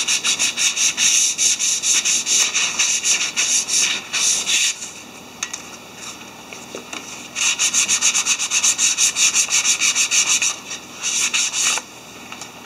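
Sandpaper rubbing on a wooden rod in quick back-and-forth strokes, about five a second. The strokes come in two long runs with a pause of a couple of seconds between them, then a short run near the end.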